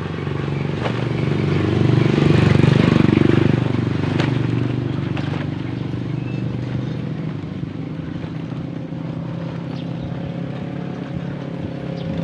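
A small motor vehicle engine running steadily, growing louder about two to three seconds in and easing off again.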